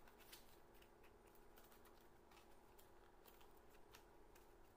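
Faint, scattered clicks and rustles of a small cardboard box being opened by hand, its tuck flap pulled out, over a low steady hum.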